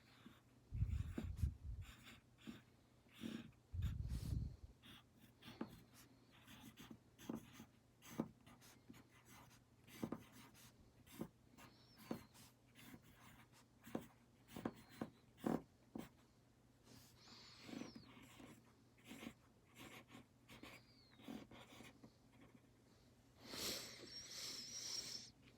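Faint handwriting on paper: a scattered run of short scratching strokes and taps, with a couple of low bumps in the first few seconds and a longer, denser scratchy stretch near the end.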